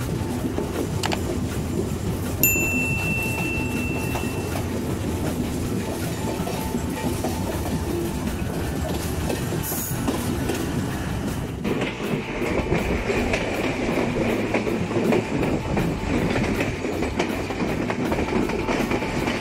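Train rumbling along the rails with wheels clicking over the track as a diesel locomotive passes on the next line, with a brief high tone about two and a half seconds in. From about twelve seconds in, a Y Class diesel shunter moving a steam locomotive, its rumble joined by a steady high whine.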